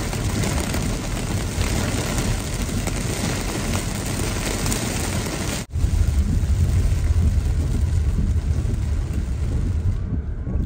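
Heavy rain pelting a car's roof and windshield, heard from inside the cabin as a dense hiss over a low rumble of wind and the moving car. Near the end the hiss largely drops away as the car pulls under a covered canopy.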